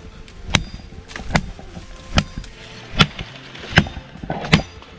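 A cutlass (machete) chopping into a tree limb: six sharp strikes in a steady rhythm, a little under a second apart.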